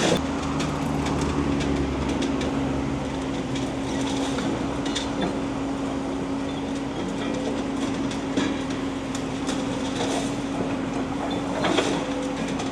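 Demolition excavator with a grab attachment running steadily with a constant hum, with scattered knocks and clanks of metal and debris.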